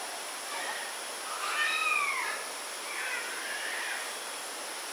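A cat meowing twice: a clear, arching meow about a second and a half in, then a fainter, wavering one about three seconds in, over a steady background hiss.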